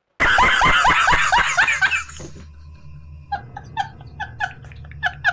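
A man laughing hysterically: a loud burst of laughter for about two seconds, then, after a brief lull, a quieter run of short, rhythmic laughs.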